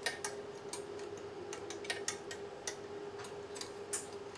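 Irregular light clicks and taps of sensor connectors and fittings being handled on a truck engine on a test bench, about two a second, over a steady background hum.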